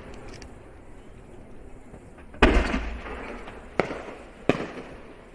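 Aerial firework shells bursting. A fading low rumble gives way to a loud bang about halfway through, then two sharper cracks follow, each echoing as it dies away.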